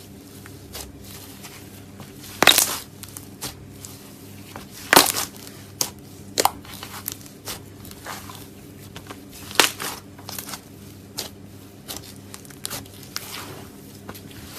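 Cloud slime being handled, making irregular crackly, crunchy sounds; the loudest come about two and a half, five and nine and a half seconds in.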